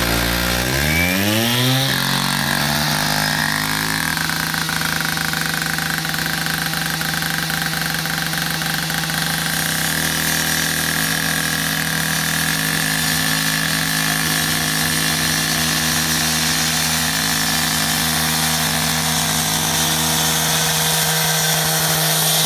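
Two-stroke gas cut-off saw revving up over the first two seconds, then running steadily at full speed as its blade cuts through asphalt.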